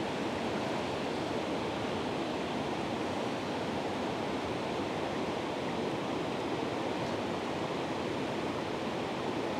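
Flowing river water rushing steadily, an even noise with no change in level.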